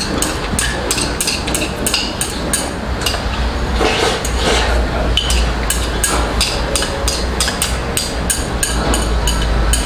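A man eating a double portion of jajangmyeon fast: close-up chewing and slurping of noodles, with a quick run of small clicks about three to four a second and a steady low hum underneath.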